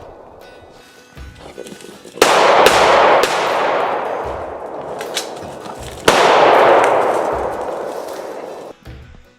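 Two loud pistol shots about four seconds apart, each followed by a long fading echo, with background music underneath.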